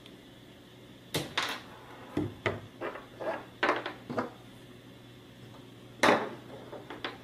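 Small hand tools, a screwdriver and a metal cross wrench, being handled and set down on a tabletop: a run of short light knocks and clatters, then one louder knock a little later.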